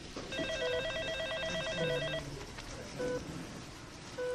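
Electronic telephone ringing with a fast warbling two-tone trill for about two seconds. Behind it, a short low beep repeats about once every 1.2 seconds.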